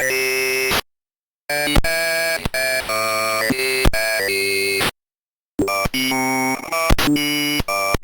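Rapid-fire snippets of synthesizer-style music from a soundboard, switching abruptly every fraction of a second into a jumbled cacophony, broken twice by brief dead silence, about a second in and about five seconds in.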